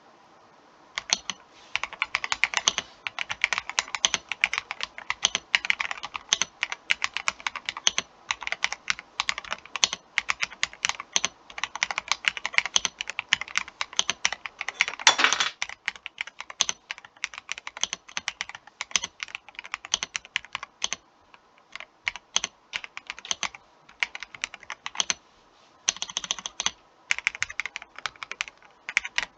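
Higround Base 65 mechanical keyboard with White Flame switches being typed on: rapid keystrokes starting about a second in, with a few brief pauses and one louder cluster of strokes about halfway through.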